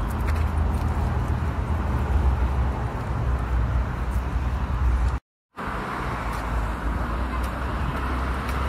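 Steady rumble of road traffic with a heavy low drone, cutting out completely for about half a second around five seconds in, then resuming.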